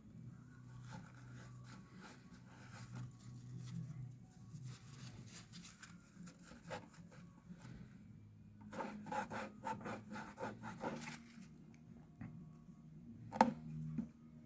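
Faint rubbing and scraping at old sticker residue on a Macintosh SE, the residue loosening as it is worked. A denser spell of scrubbing strokes comes a little past halfway, and a single sharp click sounds near the end.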